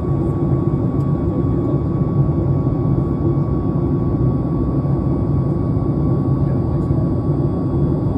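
Steady in-flight cabin noise of a passenger aircraft at cruise: a deep, even roar of engines and airflow with a thin, constant whine above it.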